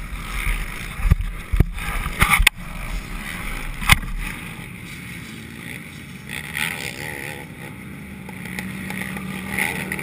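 Handling noise on a helmet-mounted camera as the helmet is taken off and set down on the ground: several sharp knocks and rubs over a low rumble, the loudest knock about four seconds in. After that comes a quieter steady background with a faint low hum.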